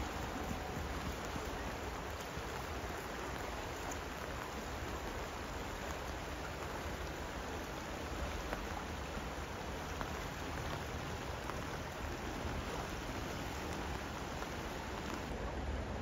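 Steady rush of river water mixed with falling rain, with a few faint scattered ticks.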